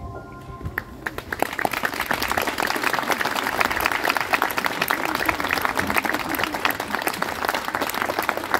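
Audience applauding at the end of a song: the last note of the music fades in the first second, then dense clapping starts about a second in and keeps going.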